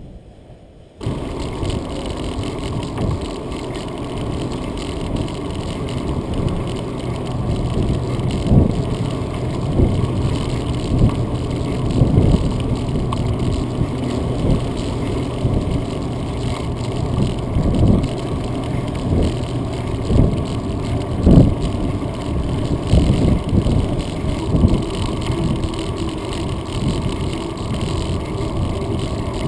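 Steady rumble and wind rush on a bicycle-mounted camera riding along a concrete sidewalk, starting suddenly about a second in, with occasional sharp knocks.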